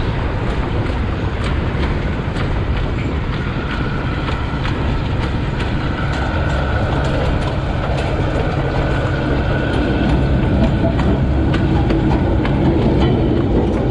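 Loaded narrow-gauge sugar-cane wagons rolling along the track, their wheels clicking over the rail joints over a steady rumble, growing slightly louder near the end.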